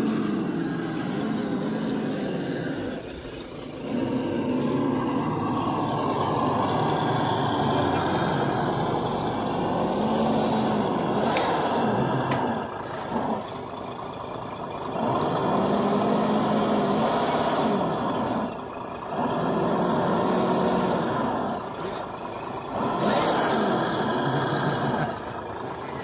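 Simulated diesel engine of a remote-controlled model truck and bus, rising and falling in pitch through repeated revs, with a few short sharp sounds in between.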